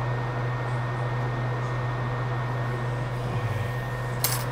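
Steady low machine hum with a faint high whine, and one sharp click near the end.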